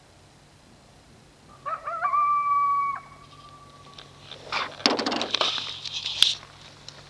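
Coyotes calling: a few short yips run into one held, level howl, then after about a second and a half a burst of rapid yipping and barking.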